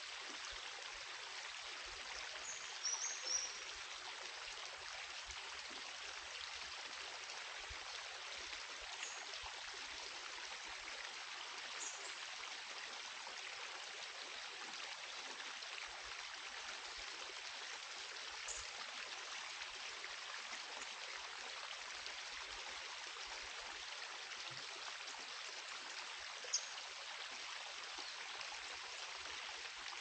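Rainforest stream and cascade water running steadily, an even rushing hiss, with a few short high chirps over it, the clearest about three seconds in and near the end.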